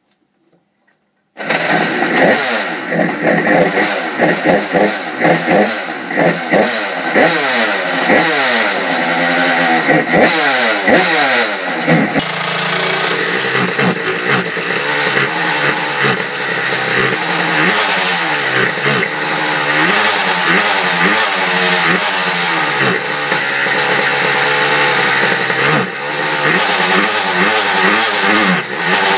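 Tuned two-stroke Vespa/Piaggio scooter engine with a Sprocatti rotary valve, 50 mm Parmakit cylinder and Dell'Orto 30 carburettor. It is spun over with an electric drill on the crankshaft, bursts into life about a second and a half in and runs through an expansion-chamber exhaust. The revs rise and fall over and over at first, then settle into steadier running from about twelve seconds in, with the engine still untuned.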